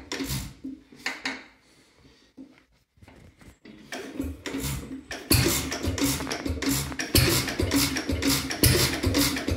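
1930s Bamford air-cooled hit-and-miss stationary engine: its firing dies away to near silence about two seconds in, then it catches again and settles into rapid, regular firing, several exhaust bangs a second.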